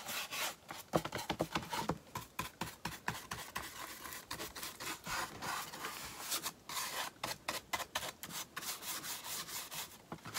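Brown wax being rubbed onto the edges of a wooden shingle, a run of quick, uneven scrubbing strokes against the wood.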